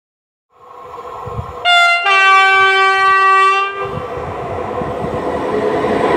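PKP Cargo ET22 electric freight locomotive sounding its two-tone horn, a short high note then a longer low note, as it approaches hauling tank wagons. Afterwards the rumble of the locomotive and wagons rolling past grows louder.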